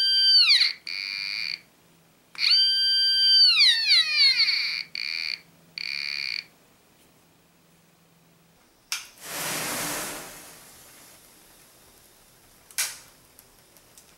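BFO metal detector's speaker whistling: a high tone with overtones that holds and then slides down in pitch, twice, as metal is moved over the search coil, followed by a few short beeps. About nine seconds in, a sharp click and a rushing hiss of flames flaring up, fading over about two seconds, with one more click near the end.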